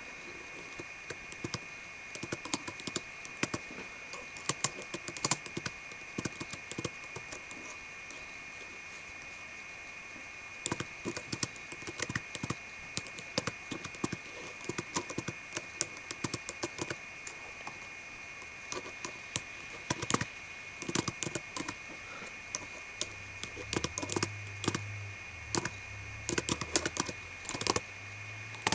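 Computer keyboard typed on with very long fingernails: clusters of sharp clacking key presses with the nails tapping the keys, in irregular bursts broken by two pauses of a few seconds.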